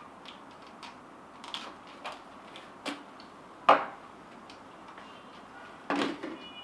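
Hard plastic vacuum-cleaner pipes and attachments being handled and set down: scattered light clicks and knocks, with one sharper knock about halfway through and a cluster of knocks near the end.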